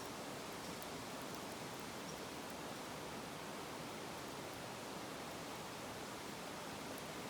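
Wood fire burning in a fire pit: a steady hiss with a few faint crackles.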